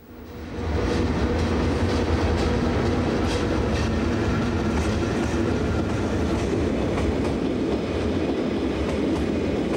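Metre-gauge Brig-Visp-Zermatt electric train, locomotive and panorama cars, running past, its noise rising over the first second to a steady level. A low hum runs under the wheels clacking over the rail joints.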